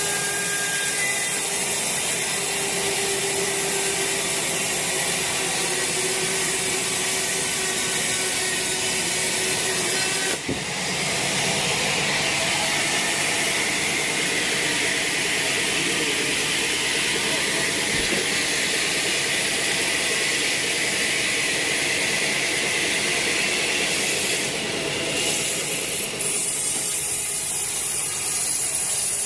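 Sawmill saw ripping a teak log lengthwise, a loud steady noise of blade in wood; about ten seconds in the sound shifts higher and brighter and holds there.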